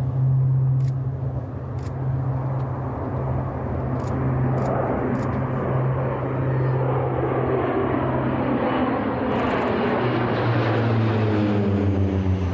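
Two twin-engine turboprop military transport aircraft flying low overhead in formation, their propellers and engines making a steady loud drone. Near the end the drone drops in pitch as the planes pass over.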